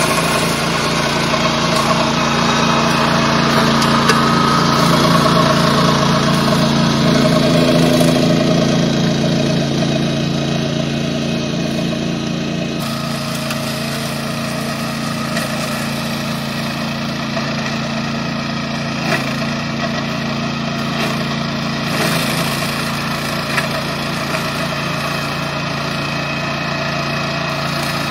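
Walk-behind two-wheel tractor's small petrol engine running steadily under load, driving a BladeRunner 60 brush-mower deck through dense weeds and vines. About 13 seconds in, the sound drops back and turns duller.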